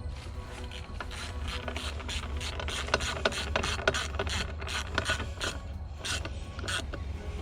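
Hand ratchet wrench clicking in a fast run of short strokes, about four to five a second, while bolts are tightened down.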